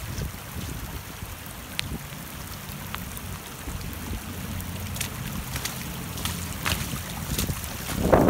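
Wind buffeting the microphone over a steady rush of floodwater, with a few faint clicks; a louder gust begins near the end.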